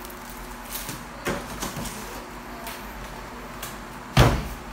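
Unboxing handling: a few faint taps and rustles, then one loud knock with a deep thud near the end, as something hard is set down or bumps against the floor.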